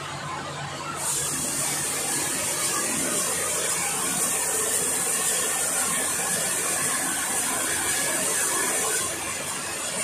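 Sawmill machinery running, with a loud, steady, high hiss that starts suddenly about a second in and cuts off about a second before the end.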